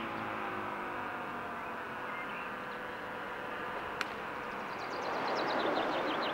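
Fire siren coasting down after an alarm, its slowly falling tones fading out. Birds chirp near the end, and a single sharp click comes about four seconds in.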